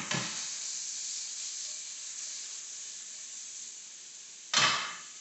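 Sliced chicken breast with peppers and onions sizzling in oil in a nonstick frying pan, a steady hiss, with one short louder rush about four and a half seconds in.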